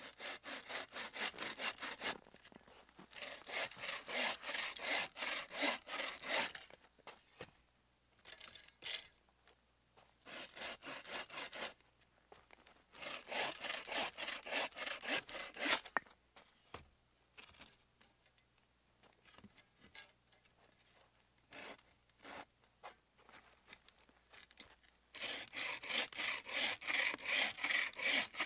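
Wooden-frame bow saw cutting through a branch, with quick back-and-forth rasping strokes, about four a second. The strokes come in several runs with short pauses between them.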